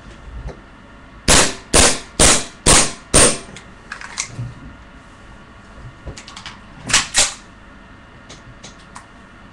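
CZ75 gas blowback airsoft pistol firing, with its gas running low: five sharp shots about half a second apart, a few lighter clicks, then two more shots in quick succession, and a few faint ticks near the end.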